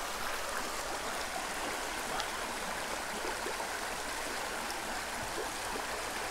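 Small trout creek flowing: a steady rush of running water, with a few faint scattered ticks of rain.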